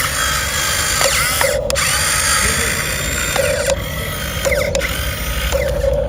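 Radio-controlled model excavator's small electric gear motors whirring with shifting pitch as it works, with repeated sharp clicks and an intermittent buzz.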